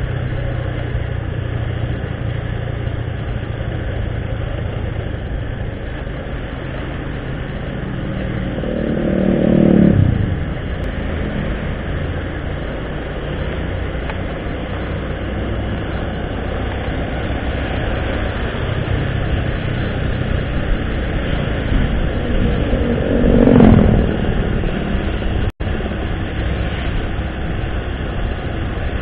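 Riding on a motorcycle: its engine runs steadily under road and wind noise. Twice another vehicle passes close by, louder for a moment with its pitch falling as it goes. The sound cuts out for an instant near the end.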